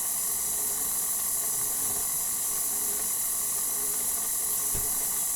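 Electric stand mixer with a dough hook running steadily at low speed, mixing flour with a yeast and milk mixture: an even high hiss with faint steady hum tones.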